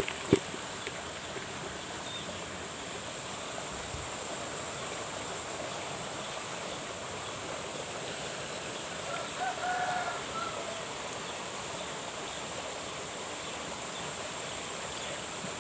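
Outdoor pondside ambience: a steady hiss with a constant high thin whine. A sharp click just after the start, and a short call with a couple of notes about ten seconds in.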